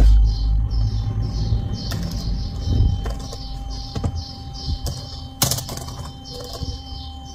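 Keys being pressed one at a time on a newly fitted Lenovo ThinkPad T430 laptop keyboard as it is tested: scattered separate clicks, the sharpest about five and a half seconds in. A low rumble fills the first second.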